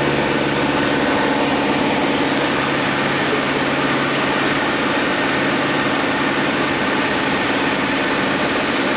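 Steady drone of a Van's RV-6 light aircraft's piston engine and propeller heard from inside its cockpit in flight, mixed with an even rush of wind noise.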